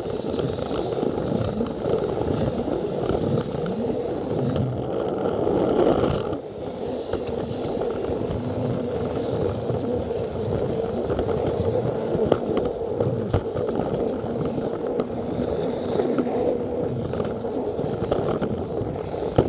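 Plarail battery toy train running on plastic track: a steady rolling and scraping noise from the motor and wheels, with scattered light clicks over the rail joints.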